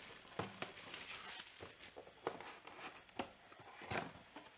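Clear plastic shrink wrap crinkling and tearing as it is stripped off a trading card hobby box, with light cardboard handling as the box is opened. Faint, irregular crackles, with a couple of sharper crinkles near the end.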